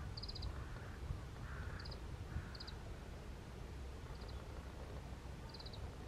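Short, dry trilled calls of about five quick notes each, repeated every second or so, from Oriental greenfinches, over a steady low outdoor rumble.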